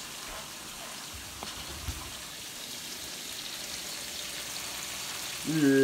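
Seasoned ribeye and chuck steaks sizzling in a hot frying pan, a steady, even hiss.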